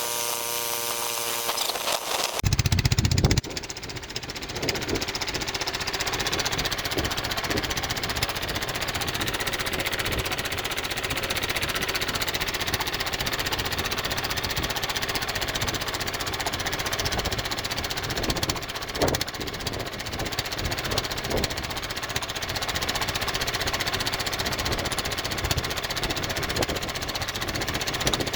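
Long-tail boat engine buzzing at low throttle, then opened right up about two seconds in and running hard and rough, driving the boat fast into a bank of weed and reeds; a few brief knocks sound over it.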